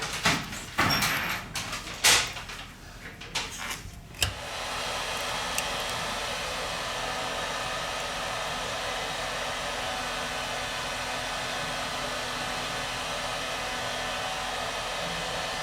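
A few clicks and knocks of handling, then about four seconds in a hot-air blower switches on and runs steadily.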